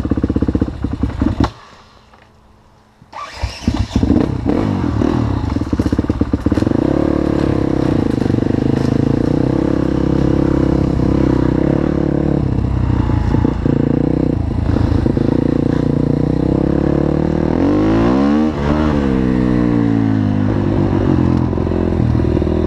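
Dirt bike engine running under the rider, heard from on the bike; it drops out briefly about one and a half seconds in and picks up again about three seconds in, then runs steadily as the bike crosses grass. Around eighteen seconds in, an engine note that rises and falls crosses the steady one.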